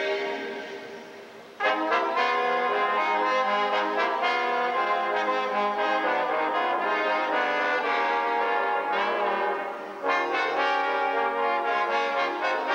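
A brass quartet of trumpets and trombone playing a tune. The playing sets in about a second and a half in, after a chord dies away, breaks off briefly near ten seconds and then resumes.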